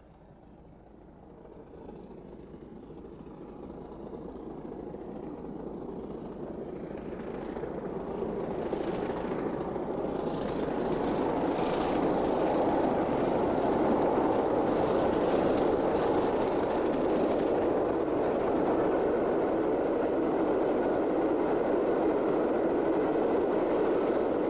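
BR Standard Class 8P No. 71000 Duke of Gloucester, a three-cylinder steam locomotive, working hard up a long gradient with a train of coaches. It comes closer and grows steadily louder over the first dozen seconds, then stays loud and steady as it passes and the coaches roll by.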